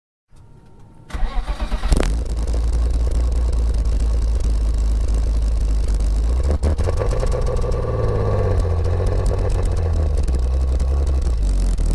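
BMW E36 328is inline-six with a rotary valve head, cranked briefly and catching about a second in, running unevenly for a moment and then settling into a steady run; the pitch rises and falls once around the middle. Heard through a microphone close to the exhaust.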